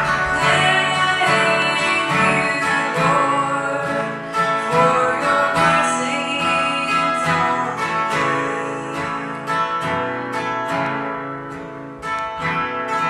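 Acoustic guitar being strummed, its chords ringing in a steady rhythm of strokes.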